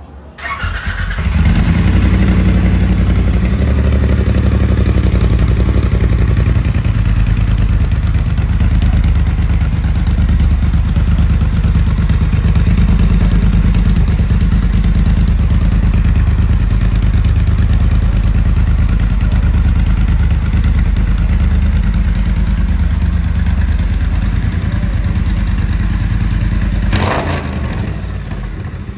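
Triumph Bonneville T120's 1200 cc parallel-twin engine starting about a second in and then running steadily at idle. It exhausts through aftermarket 3½-inch chrome straight-cut slip-on mufflers with dB-killer baffles fitted to reduce the exhaust note.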